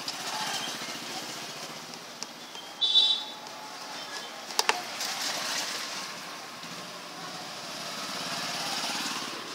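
A short high-pitched electronic beep about three seconds in, as from an induction cooker's control panel when its power button is pressed, and a sharp click a little later. Steady engine-like background noise runs underneath.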